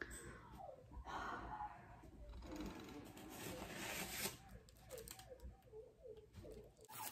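Faint rustling as plant cuttings and their packaging are handled. Near the end comes a quick run of short, soft voice sounds.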